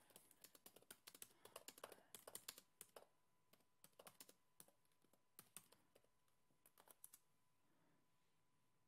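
Faint typing on a computer keyboard: quick, irregular key clicks as a short sentence is typed, stopping about seven seconds in.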